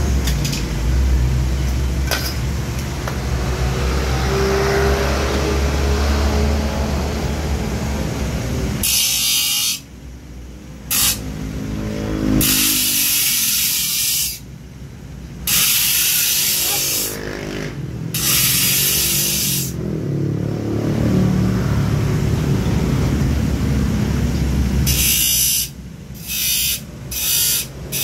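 Electric grinder with a thin abrasive disc running steadily, then grinding the teeth of a steel handsaw in a series of short passes, each a harsh hiss lasting one to two seconds, with quieter gaps between as the blade is lifted off.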